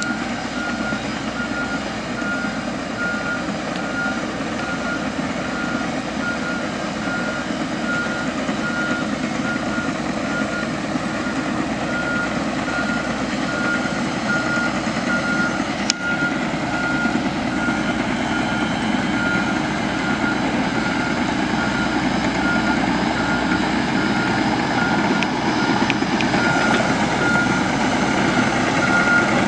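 Komatsu PC78US-6 mini excavator's four-cylinder turbo diesel running, with its travel alarm beeping in a steady, even rhythm as the machine tracks. The engine grows somewhat louder from about halfway, and there is a single sharp click near the middle.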